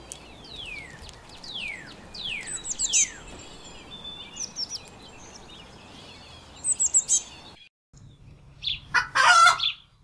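Eurasian blue tit calling: a run of thin, falling whistled notes, then short, high twittering trills. After a brief break near the end, a chicken gives a louder call.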